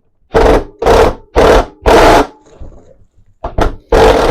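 Handheld power tool backing out a half-inch bolt on a lawn mower deck: four short trigger bursts about half a second apart, then a steady run starting near the end as the bolt comes free.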